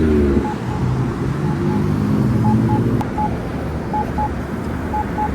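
Campbell PedSafety accessible pedestrian signal pushbutton sounding its locator tone: short beeps in pairs, repeating about once a second, over steady traffic noise. It is the wait-interval tone that helps pedestrians find the button before the walk phase.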